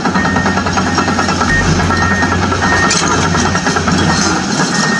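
Steady excavator engine sound running, with music playing along with it.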